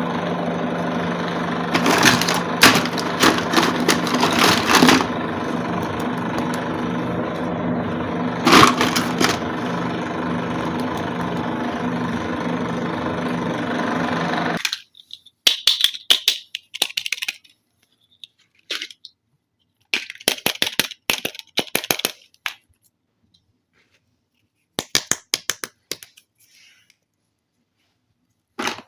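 A steady motor-like hum with a few sharp clicks over it, cutting off abruptly about halfway through. After that come scattered clusters of light clicks and taps, like small plastic toy pieces being handled and set down.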